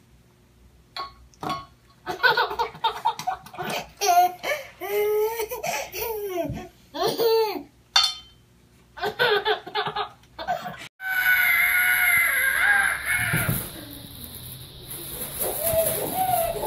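A young child laughing and squealing in short bursts. About eleven seconds in, the sound cuts off sharply and a different, steadier sound follows.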